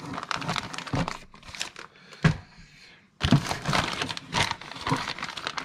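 Packaging being handled and unpacked, crinkling and rustling, with a sharp snap about two seconds in and a short pause about three seconds in before the crinkling resumes.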